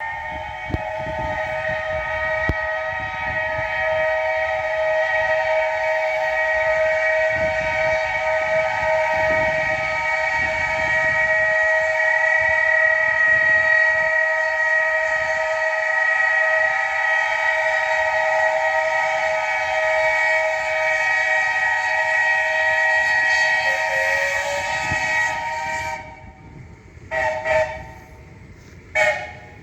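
Steam whistles of three steam trams blowing together in one long, steady chord of several tones, which cuts off suddenly, followed by two short toots near the end.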